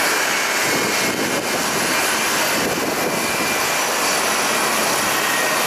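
Jet airliner engines running while the aircraft taxis: a steady rushing noise with thin, high, steady whining tones.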